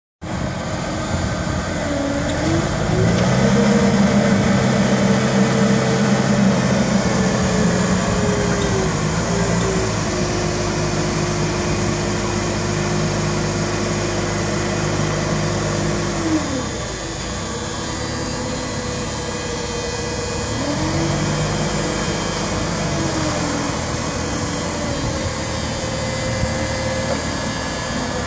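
Forklift engine running and revving up to drive the hydraulics of a rotating paper-roll clamp. It rises a couple of seconds in and holds high, drops back to a lower speed a little past halfway, and revs up briefly again later.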